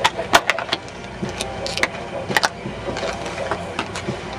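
Foil trading-card packs and their cardboard box being handled: irregular crinkles and clicks over a steady low hum.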